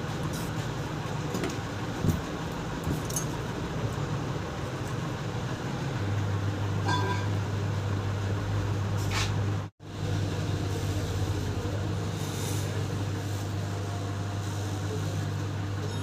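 Steady background noise with a low hum that sets in about six seconds in, and a few faint clicks; the sound drops out briefly near the middle.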